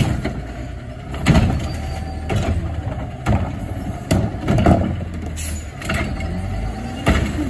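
Front-loader garbage truck idling while its Curotto-Can automated arm grabs a plastic wheeled trash cart, tips it and sets it back down. Sharp knocks and bangs about a second apart come from the cart being handled.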